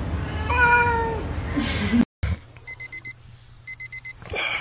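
A cat meowing, with one long call that falls in pitch. After a brief break, a digital alarm clock beeps in rapid groups of four.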